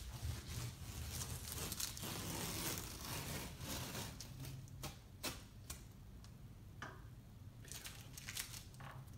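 Yellow masking tape being peeled off a painted wall, with faint crackling and tearing as the strip comes away and a few sharp clicks around the middle.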